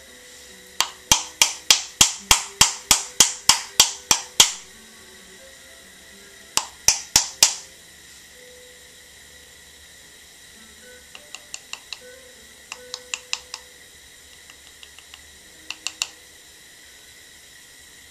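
Wooden paddle slapping the sides of a clay cup to flatten them: a fast, even run of about fourteen sharp smacks, a shorter run of four a couple of seconds later, then lighter, quieter taps in small groups near the end.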